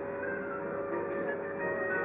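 Music with sustained held notes under a short melody.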